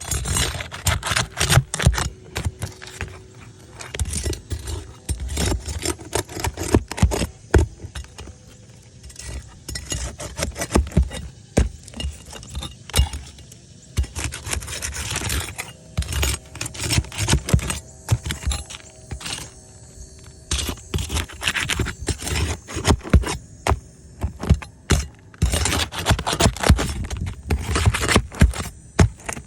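Asphalt roof shingles being pried up and worked loose: irregular scraping, crackling and clicking in dense flurries with short pauses.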